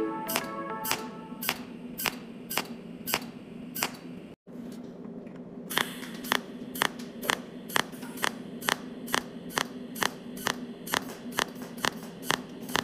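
Pulse (cold) welding machine firing spot-weld shots one after another, a sharp snap about twice a second over a steady low hum. The snaps break off for a moment about four seconds in and then carry on at the same pace.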